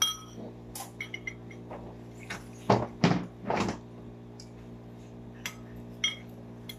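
Metal spoon clinking against a ceramic bowl as a child eats, a few separate clicks with a brief ring on the first. About the middle come three short, louder noises, over a steady low hum.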